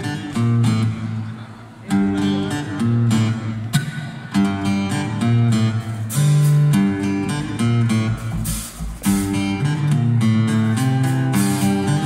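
Live acoustic guitars, several of them, strumming and picking a chord progression with sharp, percussive attacks in an instrumental passage.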